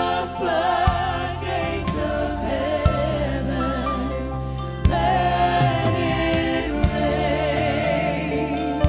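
A woman's solo voice singing a gospel song over backing vocalists and a live band with drums.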